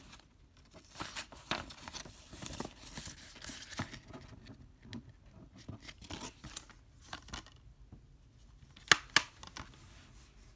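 A plastic Blu-ray case being handled and turned over, with scattered rustling and scraping of plastic. Near the end come two sharp clicks a moment apart, the case snapping shut.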